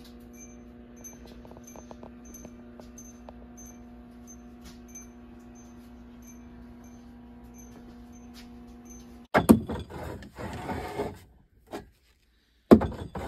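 A steady electrical hum with faint, evenly spaced small ticks. About nine seconds in it gives way to loud clattering and knocking of glass canning jars being handled on a pantry cupboard shelf.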